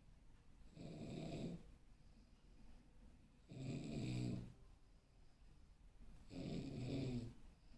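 Snoring in a slow, regular rhythm: three snores about three seconds apart, each close to a second long, with faint breathing between them.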